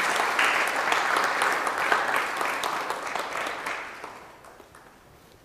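Audience applauding, a dense patter of many hands clapping that fades out about four seconds in.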